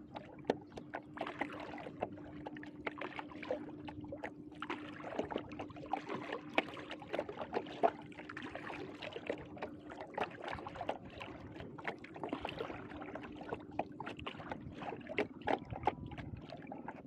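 Irregular splashing and sloshing of water as someone moves through a flooded rice field, heard over a steady low hum.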